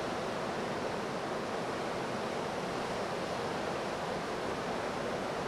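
Ocean surf washing onto a beach in a steady, unbroken rush, the early stage of a hurricane swell.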